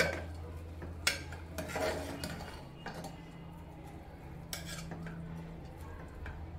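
A steel spoon stirring raw soaked rice in an aluminium pressure cooker, scraping and clinking against the pot. It gives sharp clinks at the start, about a second in and again around four and a half seconds, with softer scraping between, over a low steady hum.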